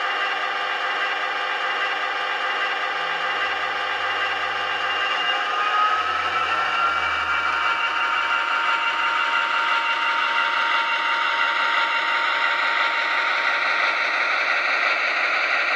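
Sound-equipped HO scale MTH model of a Santa Fe F7 diesel locomotive, its DCS sound system playing a diesel engine sound steadily. About five seconds in the engine sound rises in pitch and grows a little louder, then holds at the higher pitch.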